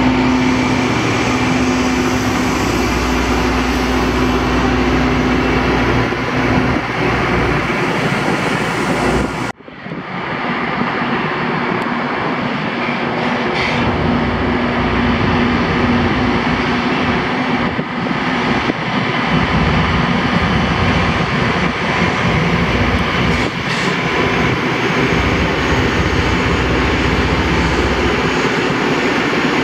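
Loram rail grinder train running along the track, its diesel power and grinding stones on the rail making a loud, steady mechanical noise. The sound breaks off abruptly about ten seconds in and starts again.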